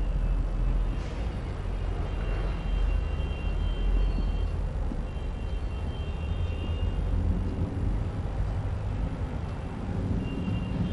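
Marker writing on a whiteboard, with short high squeaks that come and go several times, over a steady low rumble of room noise.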